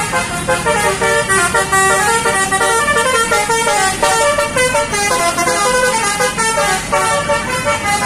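A tour bus's 'telolet' multi-tone musical horn playing a quick melody, its notes stepping up and down several times a second without a break.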